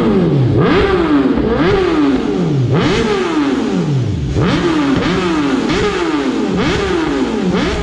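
BMW S1000RR sportbike's inline-four engine free-revved at standstill in quick throttle blips, about one a second, each rev jumping up sharply and falling back before the next.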